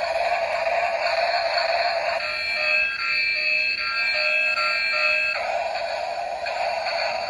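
Background music with buzzy synthesized tones. It changes to a different set of held pitches between about two and five seconds in.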